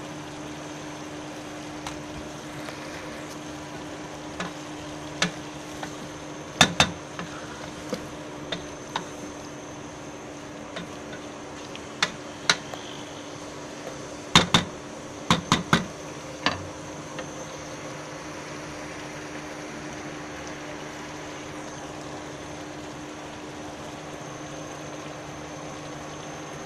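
Utensils clinking and knocking against a cooking pot of beans, potatoes and brinjal: a dozen or so sharp clicks and clanks, the loudest a cluster about 14 to 16 seconds in, then none for the last ten seconds. A steady low hum runs underneath.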